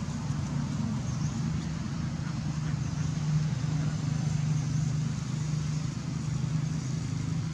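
A steady low engine hum with background noise, like a motor running nearby.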